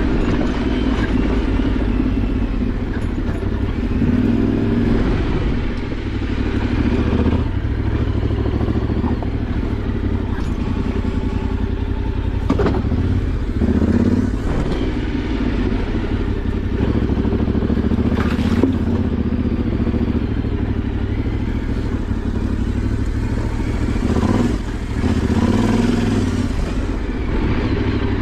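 Yamaha Ténéré 700's parallel-twin engine running at low revs as the motorcycle is ridden slowly off-road, the throttle opening and closing a little. A few sharp knocks and rattles from the bike over rough ground, the clearest about halfway through.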